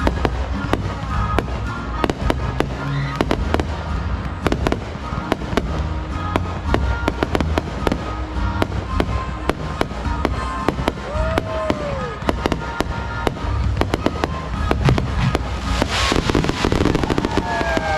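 Fireworks going off: a rapid stream of crackling pops and bangs over a low rumble, with whistles gliding in pitch about eleven seconds in and again near the end, and a loud hissing burst about sixteen seconds in. Music plays underneath.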